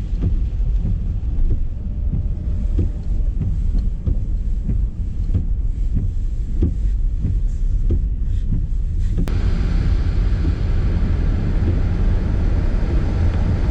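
Car driving through heavy rain, heard from inside the cabin with a steady low engine and road rumble. About nine seconds in, a loud steady rush of water spray starts suddenly as the tyres run into standing floodwater on the road.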